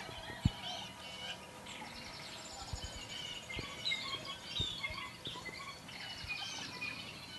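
Birds calling and chirping, many short calls and trills overlapping, with a few dull thumps, the loudest about half a second in.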